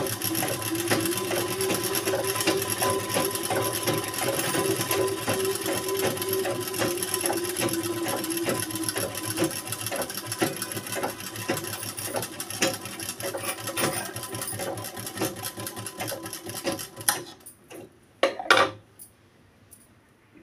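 Sewing machine stitching a seam through gathered fabric, its needle clattering rapidly with a steady motor hum. It stops about three seconds before the end, followed by a couple of sharp knocks.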